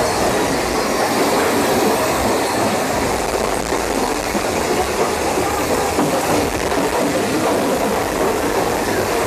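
Mine-train roller coaster cars running along the track: a steady rumble with rattling wheel clatter.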